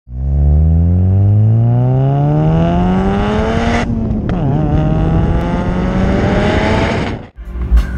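Turbocharged 2002 Audi A4 engine under hard acceleration, revving up steadily through one gear, a brief break and drop in pitch at a gear change about four seconds in, then climbing again through the next gear. The sound cuts off suddenly near the end.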